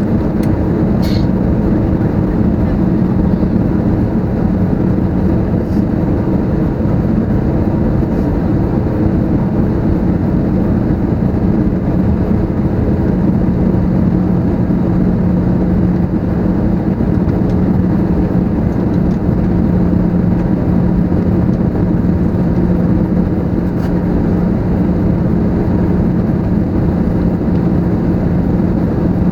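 Steady cabin drone inside an Airbus A320neo airliner on approach: engine and airflow noise at an even level, with a steady low hum through it.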